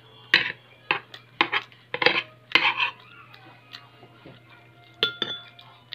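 Metal spoon scraping and clinking against a plate while scooping rice, in a run of short, sharp scrapes over the first three seconds and another about five seconds in.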